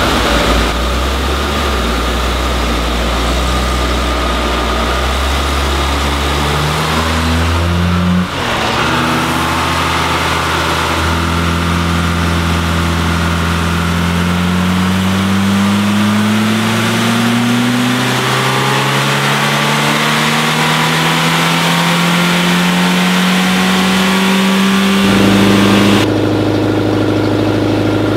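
Car engine on a chassis dynamometer, its revs climbing steadily under load in a long ramp run, then dropping back to a steady idle near the end.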